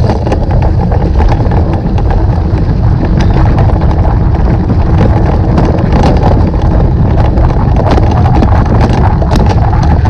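Wind buffeting the microphone and a steady low rumble from a mountain bike being ridden over a rough, sandy forest trail, with many quick rattling knocks as the bike jolts over bumps.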